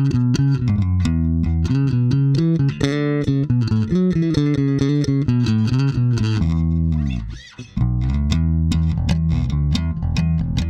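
Electric bass guitar, an FGN Neo Classic jazz bass on its stock pickups, played in a fast run of sharply attacked notes. The playing briefly thins out about seven seconds in with a sliding pitch, then picks up again.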